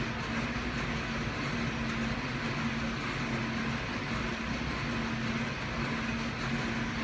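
Steady mechanical running noise with a low hum that breaks off and comes back every second or so.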